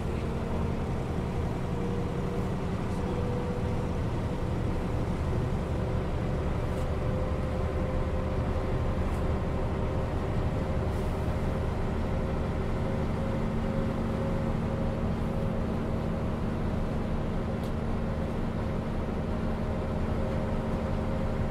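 Mercedes-Benz O 407 city bus heard from inside the passenger cabin while driving: a steady diesel drone with a whine that rises slowly in pitch as the bus gathers speed.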